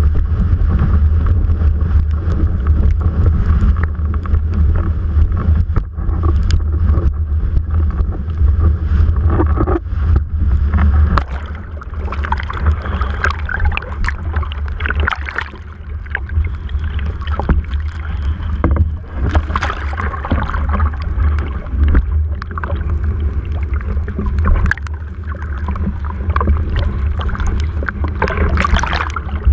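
Wind buffeting a mast-mounted GoPro's microphone as a low, steady rumble, with water splashing and spray hitting the camera. The splashing grows busier about a third of the way in, with sharp slaps of water on the housing.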